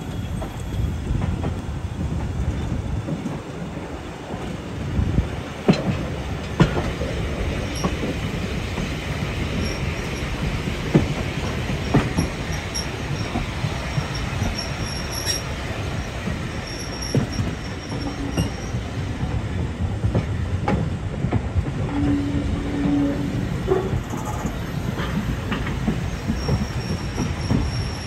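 Heritage railway carriage rolling slowly over points and rail joints: a steady low rumble with irregular clicks and knocks from the wheels, and faint high wheel squeals from about ten seconds on.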